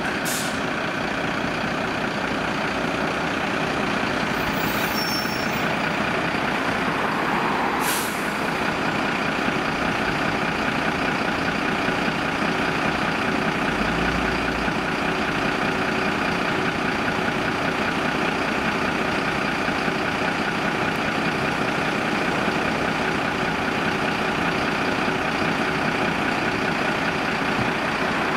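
Mercedes-Benz fire engine's diesel engine idling steadily.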